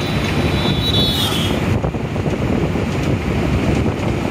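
Wind buffeting the microphone at an open window of a moving vehicle, a dense steady rumble of wind and road noise. A faint high whistle comes briefly about a second in.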